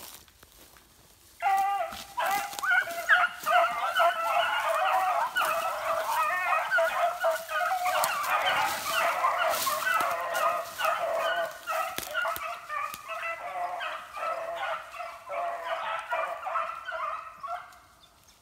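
Pack of beagles baying together as they run a trail, several overlapping voices. The chorus breaks in suddenly about a second and a half in and thins out near the end.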